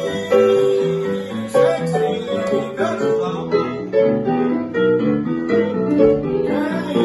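Live piano-and-voice music: a stage piano played as rhythmic chords and bass notes, with a man singing over it at times.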